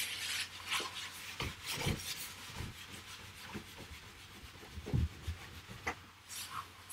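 Marker being wiped off a whiteboard in repeated scrubbing strokes, with a few soft knocks against the board.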